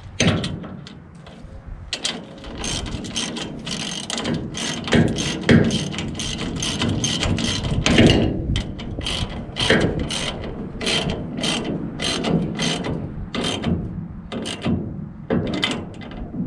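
Ratcheting combination wrench clicking in repeated bursts as it is swung back and forth, tightening a lock nut onto a bolt at the tarp arm's pivot.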